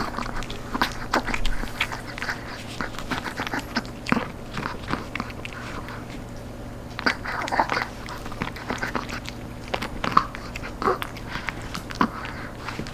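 Chihuahua chewing a crisp, dried duck-joint treat: irregular crunches and cracks as the dried cartilage breaks between its teeth.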